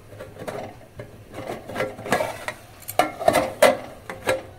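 A stainless steel lid being shifted and pressed down on a cooking pan on a gas stove: metal scraping against the pan's rim, with a run of sharper clinks in the second half.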